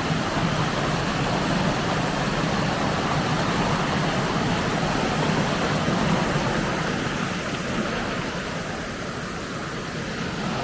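Steady rushing of river water flowing over rocks, a constant even noise that eases slightly near the end.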